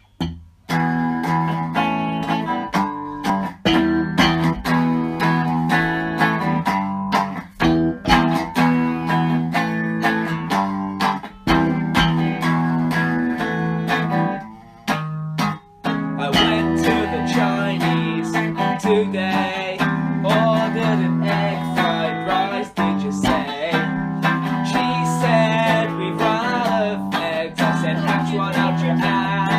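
Guitar music, with a short break about halfway through before it starts again.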